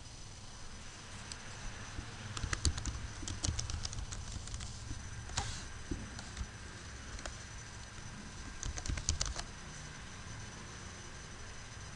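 Typing on a computer keyboard: a run of key clicks a couple of seconds in, then a shorter burst near the end, over a steady low hum.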